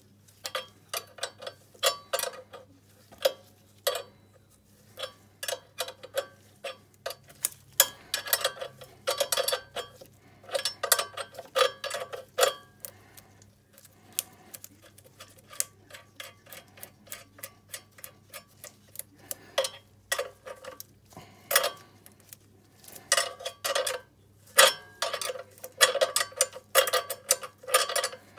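Ratcheting wrench clicking in quick runs of ticks with short pauses between strokes, as it tightens the lock nut on the chain-adjuster bolt of a chain-drive 125 cc ATV once the chain tension is set.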